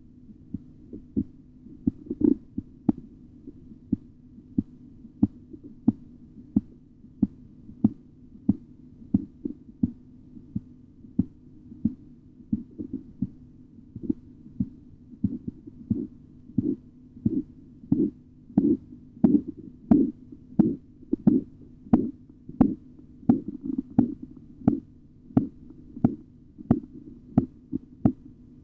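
Korotkoff sounds heard through a stethoscope while a blood pressure cuff deflates: a regular tapping, a little more than one tap a second with the pulse, faint at first and louder later, over a steady low hum.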